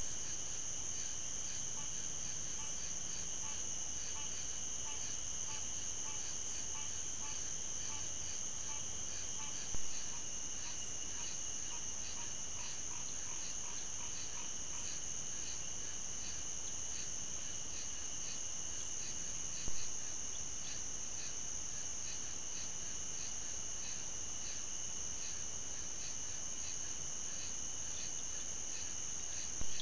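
Night chorus of crickets and other insects: a steady high trilling with a regular ticking chirp running through it. A brief pop comes about every ten seconds, at about ten and twenty seconds in and again near the end, where short trail-camera clips are joined.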